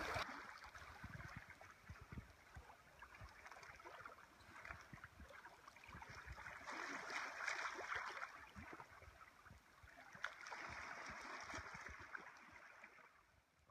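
Faint lapping and gurgling of small lake waves washing among shoreline rocks, swelling a couple of times and fading out near the end.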